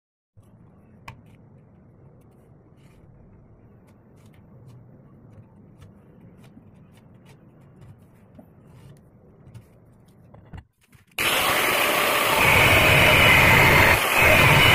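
Faint scattered clicks and knocks, then about eleven seconds in a loud, steady machine noise begins abruptly, with a high whining band over a broad rushing noise.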